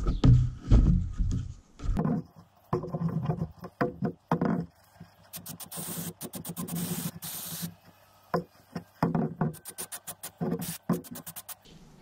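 Aerosol can of high-temperature spray adhesive hissing in two spurts of about a second each, midway through, followed by a run of quick clicks and rattles.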